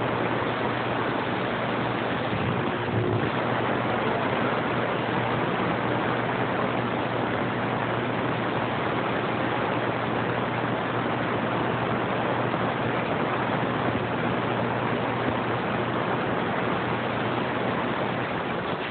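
Steady static hiss from a CB radio receiver, with nobody transmitting on the channel, and a faint low hum running underneath.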